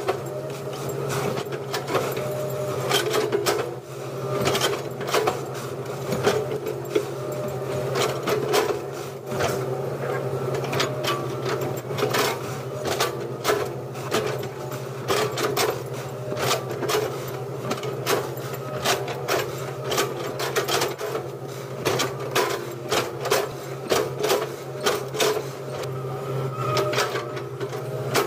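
Excavator engine running steadily, with frequent irregular sharp knocks and clatter over it throughout.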